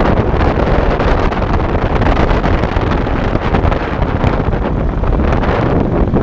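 Wind buffeting the microphone of a camera riding along on a moving bicycle: a loud, steady rushing noise that covers everything else.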